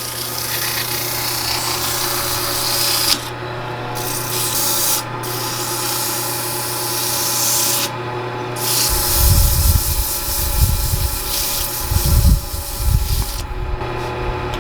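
Wood lathe running with a hand tool cutting a spinning cedar bowl blank: a steady motor hum under a hissing scrape of the tool on the wood. The scrape breaks off briefly three times, and low rumbling thumps come in over the second half.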